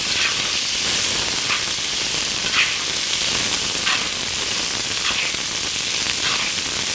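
Bone-in rib-eye sizzling steadily in hot butter and beef fat in a cast iron pan while it is basted, with a soft splash about once a second as the fat is spooned over the meat.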